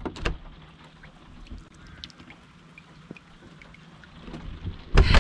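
Hymer motorhome's entrance door being unlatched with a few sharp clicks at the start and pushed open, then quiet handling with faint ticks and a loud thump about five seconds in.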